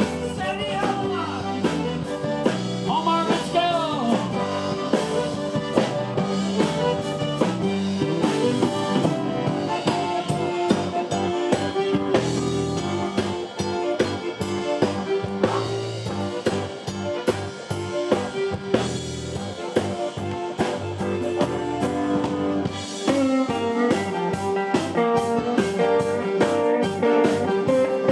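Blues-rock song in an instrumental stretch: guitar over a steady drum beat, with no singing.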